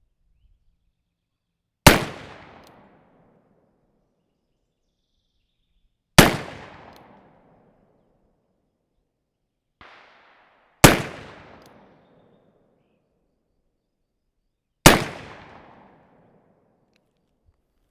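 Pietta 1858 New Model Navy .36-calibre cap-and-ball revolver firing four shots of 25-grain black-powder loads, about four seconds apart, each shot ringing out for about a second. A much fainter crack comes about a second before the third shot.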